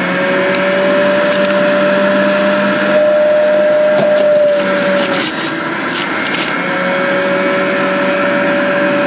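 Breville Juice Fountain Multi-Speed centrifugal juicer running at speed four, its motor whining steadily as apple pieces are pushed down the chute and grated, with a few short crunches. The whine drops out for about a second a little past the middle, then returns.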